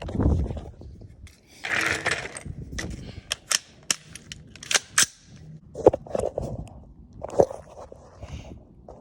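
Gunshots from an AR-15 firing .223 handloads: a string of sharp cracks, the two loudest about six and seven and a half seconds in, after a brief rushing noise about two seconds in.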